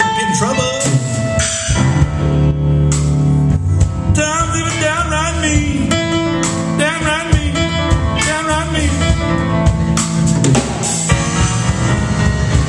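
Live band music: electric guitar and drum kit playing over a steady low bass, with a wavering, bending lead line through the middle.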